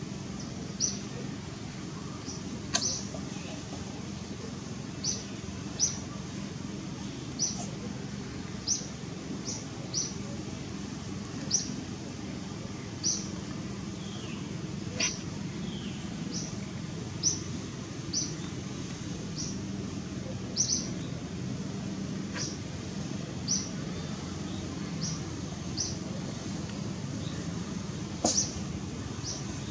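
Short, high-pitched animal chirps repeating about once a second, over a steady low hum.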